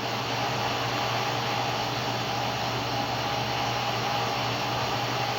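Steady rushing noise of a small blower motor, with a faint steady hum.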